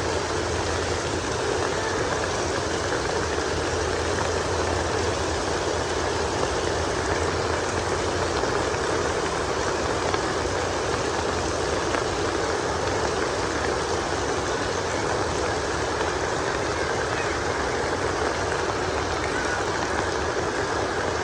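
Heavy rain falling, a steady even hiss and patter with no let-up.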